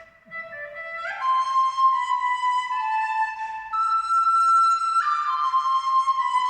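Instrumental music of sustained flute-like notes, two or three parts held together. After a brief near-silent gap at the start, a louder new chord enters about a second in, and the notes change again around four and five seconds in.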